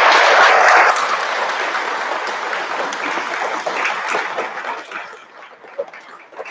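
A large group of students applauding together. The applause is loudest at the start and dies away over about five seconds, leaving a few scattered claps and some murmuring voices near the end.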